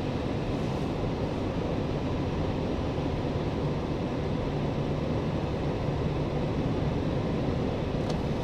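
Steady road noise inside the cabin of a 2021 Chevrolet Suburban Z71 cruising on the road: tyre rumble from its off-road tyres with the 5.3-litre L84 V8 running smoothly at cruise.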